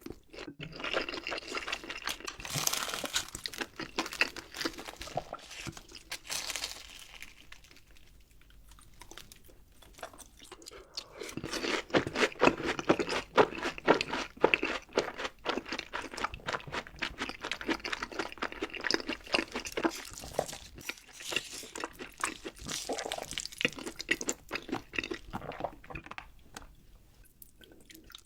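Close-miked eating: crunchy bites and chewing of crisp fried food, many sharp crackles in quick succession. The crunching is loudest and densest around the middle, with quieter chewing before and near the end.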